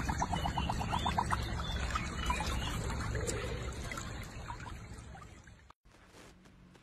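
Water trickling and sloshing around a husky lying in a shallow muddy stream, with a rapid run of short pulses, about ten a second, in the first second or so. The water sound fades and cuts off about six seconds in, leaving faint room tone.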